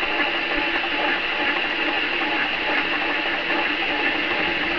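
Benchtop metal lathe running with its chuck spinning: a steady mechanical whir of the spindle and gear train.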